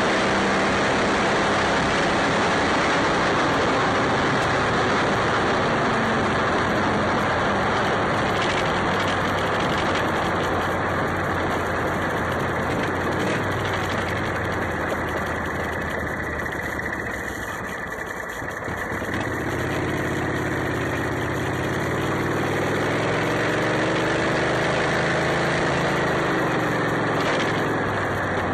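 Modified Club Car golf cart's 23 hp Briggs & Stratton engine running as the cart drives along. About two-thirds of the way through it briefly eases off, then pulls again with its note rising and falling.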